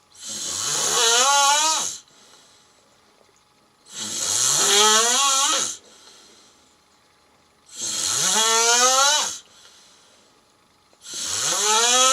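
Loud snoring, four long snores about every four seconds. Each is a breathy snore carrying a tone that rises in pitch, and the fourth starts near the end.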